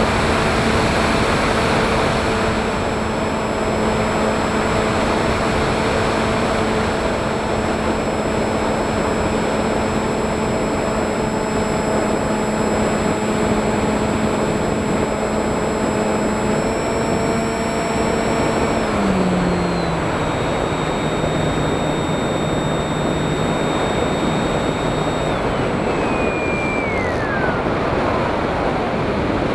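FPV drone motors and propellers whining over heavy rushing wind noise. The pitch steps down about two-thirds of the way through, then falls in a long glide near the end as the throttle comes off.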